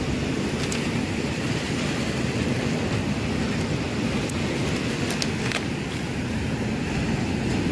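Steady low rushing of wind and surf, with a few light clicks and crinkles as a hand rummages through a bucket of fresh-caught fish, a plastic bag and a plastic bottle.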